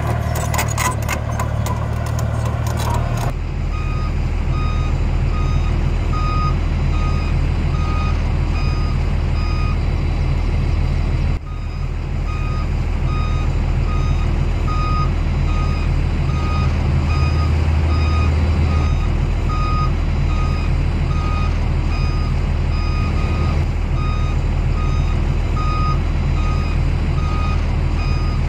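Backup (reversing) alarm of a small construction machine beeping steadily, about two beeps a second, over its diesel engine running. Before the beeping starts, about three seconds in, there is a rapid clatter over the engine.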